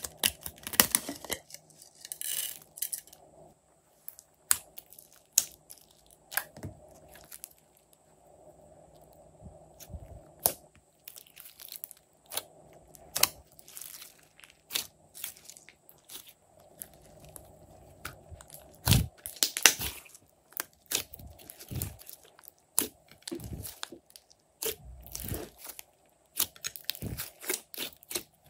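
Glossy slime being squeezed, stretched and folded by hand, giving a stream of irregular sticky crackles and pops as air pockets in the slime burst, with louder bursts of crackling about a second in and again around two-thirds of the way through.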